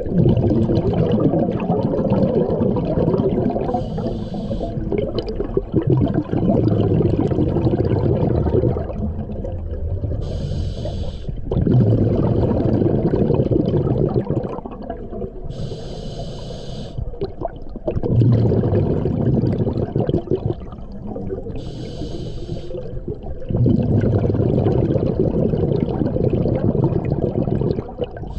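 Scuba diver breathing through a regulator underwater, five slow breaths: each a short hiss on the inhale, then a few seconds of bubbling exhaust on the exhale.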